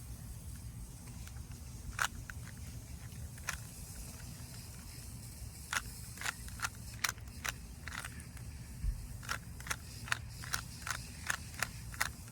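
Rubik's Cube being turned by hand: the plastic layers click sharply as faces are twisted, a few scattered turns at first, then a quicker run of about two clicks a second over the last six seconds.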